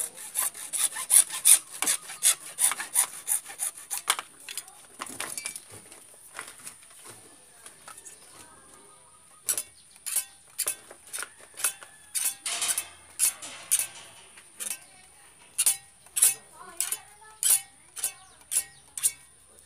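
Hacksaw cutting through PVC pipe with quick back-and-forth strokes, about two to three a second, in two bouts with a short pause between them.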